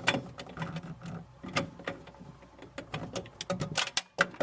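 Irregular clicks, taps and light knocks of hands and a tool working a part into place inside a refrigerator, with a quick run of sharp clicks near the end.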